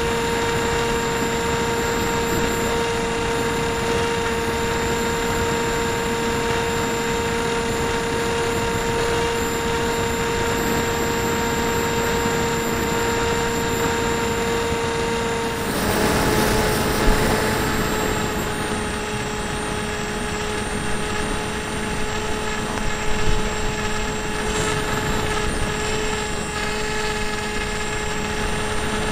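Electric motor and propeller of an AXN foam model plane running steadily in flight: a held whine with rushing air. About halfway through there are a couple of seconds of louder rushing noise, and the whine settles slightly lower.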